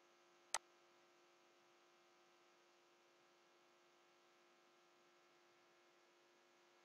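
Near silence with a faint steady electrical hum, broken once, about half a second in, by a single sharp click of a computer mouse button.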